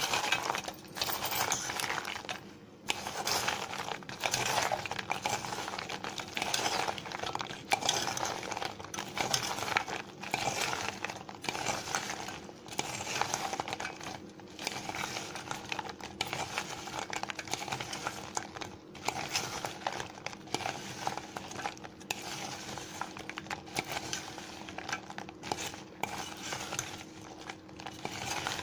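Steel spoon stirring and scraping around a stainless steel pot in irregular strokes, turning fried gavvalu through sticky jaggery syrup to coat them.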